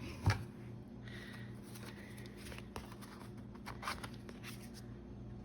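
An old Creative Memories paper punch clunking once just after the start as it cuts a heart from paper, followed by faint rustling and light clicks of the paper being handled.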